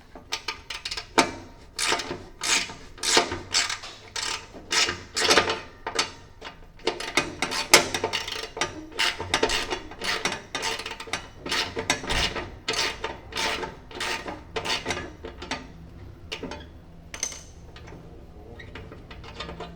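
Socket ratchet wrench clicking in repeated short strokes as bolts are turned on the mower deck; the strokes thin out near the end.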